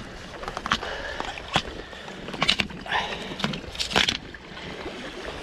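Several sharp knocks and clicks from fishing gear being handled, a landing net and rod, over a steady background hiss.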